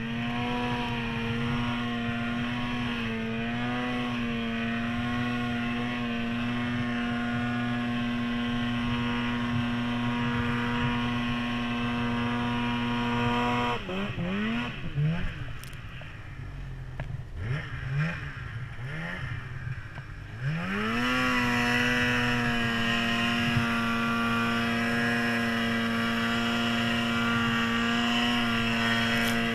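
Polaris Pro RMK 800 snowmobile's two-stroke twin engine held at steady high revs while pushing through deep powder. About 14 seconds in the revs drop off, with a few short throttle blips; about 21 seconds in it revs back up and holds high again.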